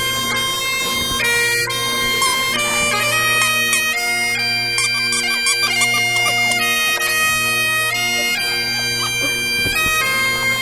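Bagpipe music: a steady low drone under a melody that steps from one held note to the next.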